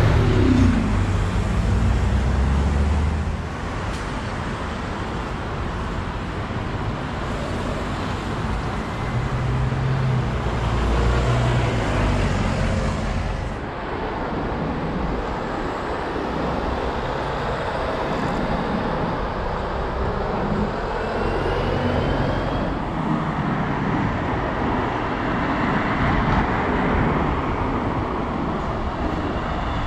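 Road traffic at a city junction: a large coach's engine, low and loud, as it drives past close by in the first few seconds, then cars and buses passing over steady traffic noise.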